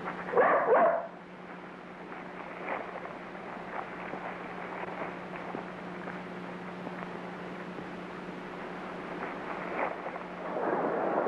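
A German shepherd barks twice in quick succession about half a second in. After that there is only the steady low hum and hiss of an old film soundtrack, with faint clicks, and a louder noise rises near the end.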